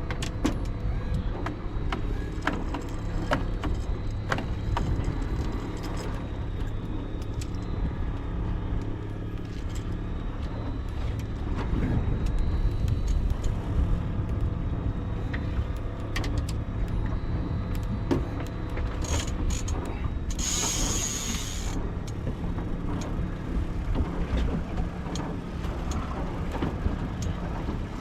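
Boat engine running steadily at trolling speed, with scattered clicks and knocks from gear on board and a brief hiss about twenty seconds in.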